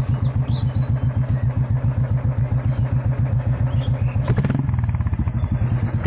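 Royal Enfield Bullet's single-cylinder four-stroke engine running with a rapid, even thumping beat. About four seconds in there is a short rush of noise and the engine's note shifts.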